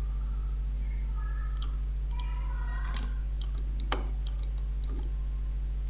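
Scattered sharp clicks of a computer mouse, about eight of them with one louder click near the middle, over a steady low electrical hum.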